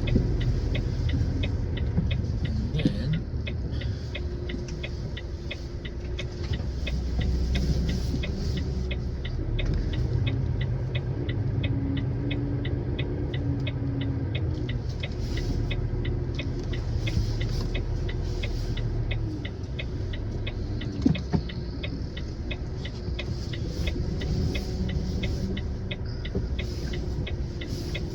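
Inside an HGV cab: the lorry's diesel engine running at low revs as it is manoeuvred slowly into a parking space, the revs rising and falling a little. A fast, even ticking carries on over it, and two short sharp knocks come near the end.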